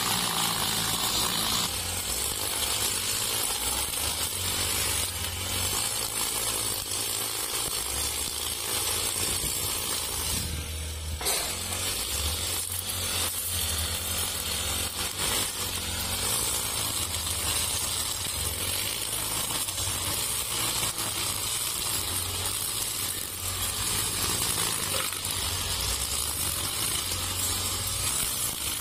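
Four-stroke brush cutter with a nylon line head running steadily at cutting speed, its engine humming under the constant hiss of the spinning line whipping through short grass.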